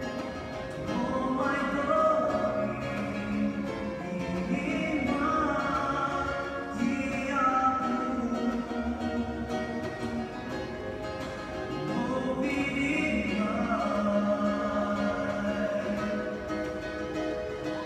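A song: voices singing held, gliding notes over plucked-string accompaniment.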